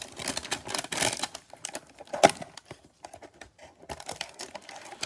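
A cardboard trading-card hanger box being torn open and the plastic-wrapped card stack crinkling as it is pulled out: a run of sharp rips and crackles, loudest about two seconds in, thinning to scattered crinkles near the end.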